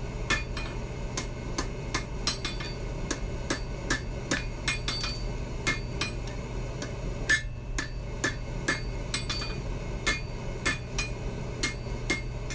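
Hand hammer striking red-hot steel on an anvil, about two ringing blows a second with a short pause about seven seconds in, as the tip of a blade forged from an old rasp is drawn down. A steady low hum runs underneath.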